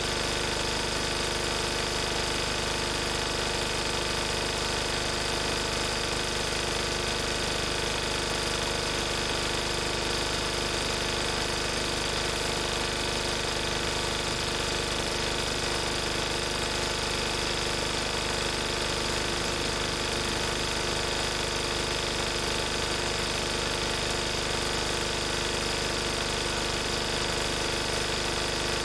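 Lister Petter AD1 single-cylinder air-cooled diesel engine driving a 5 kVA generator, running steadily at its governed 3000 rpm with an even, unchanging note.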